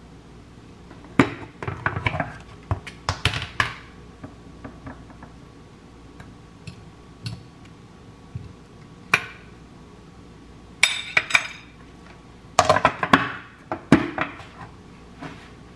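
Kitchen clatter of sharp knocks and clinks in a few clusters: a knife knocking on a bamboo cutting board, a fork and fruit pieces set onto a ceramic plate with a ringing clink, and a plastic lid pressed onto a glass food container, loudest near the end.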